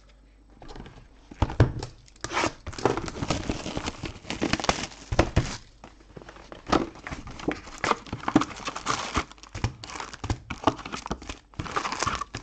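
Crinkling and tearing of packaging, with handling clicks, as a box of Donruss Optic trading cards is opened and its foil packs are taken out. It starts about a second in.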